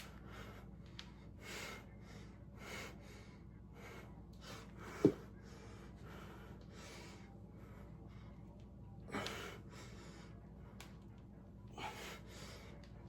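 A person breathing hard from exertion, with loud puffs of breath every second or two and the heaviest ones near the end. A single short, sharp knock about five seconds in.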